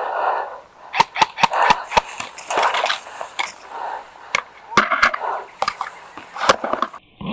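Airsoft guns firing in close-quarters play: a run of sharp, irregular snaps and knocks, several a second, with BBs striking hard surfaces.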